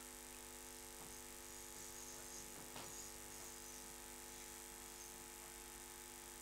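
Faint steady drone of several held tones, with a soft knock or two.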